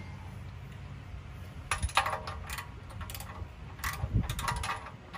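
Irregular metallic clinks and taps of a spark plug socket and wrench working on the spark plug of a Predator 212 small engine as the plug is loosened for removal.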